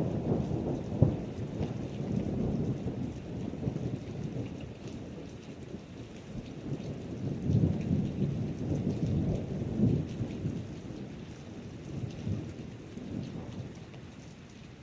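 Thunder rumbling over steady rain, with a sharp crack about a second in and a longer swell of rumbling midway, dying away near the end.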